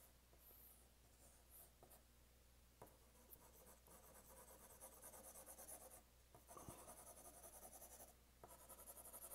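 4B graphite pencil shading on drawing paper: faint scratchy back-and-forth strokes in quick runs, the first starting about three seconds in, with short pauses between runs.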